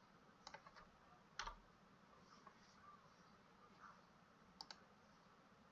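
Near silence with a few faint clicks: a quick cluster about half a second in, a louder single click about a second and a half in, and a double click near the end.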